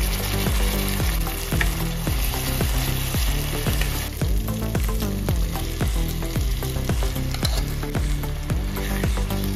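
Onions and tomato purée sizzling in oil in a nonstick pan, with a wooden spatula scraping and stirring through them in quick repeated strokes.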